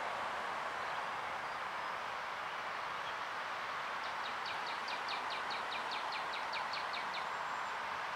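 A small bird sings a rapid trill of about five quick, down-slurred notes a second, starting about halfway in and lasting about three seconds. Under it runs a steady, even background hiss.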